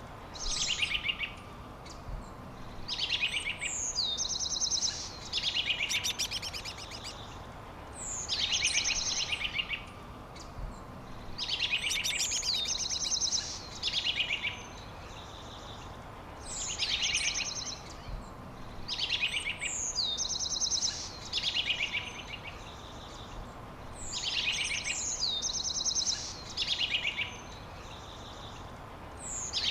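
Songbirds singing short, high-pitched phrases with fast trills, a phrase every second or two, over faint steady background noise.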